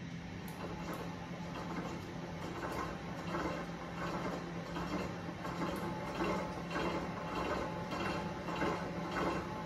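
Innofood stand mixer running steadily, its motor a low hum, with a faint repeating sound from the flat beater turning through cookie dough as flour is mixed in.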